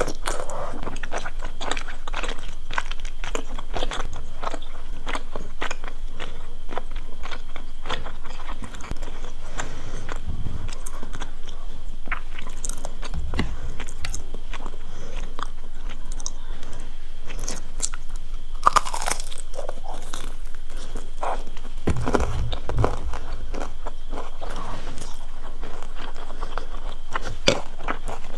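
Close-miked eating sounds: a person chewing tteokbokki rice cakes and biting into crispy fried dumplings. The chewing makes a dense, steady run of small mouth clicks and crunches.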